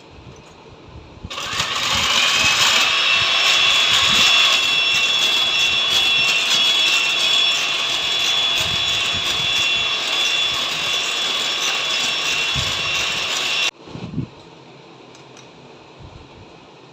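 Electric mixer beating a cake batter of eggs, sugar, oil and milk: it switches on about a second in with a briefly rising whine, runs steadily for about twelve seconds, then cuts off suddenly.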